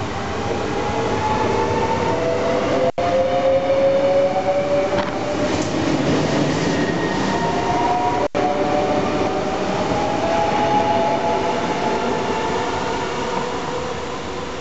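Train running on the track, with a whine in several tones rising slowly in pitch as it picks up speed. The sound cuts out for an instant twice, about three and eight seconds in.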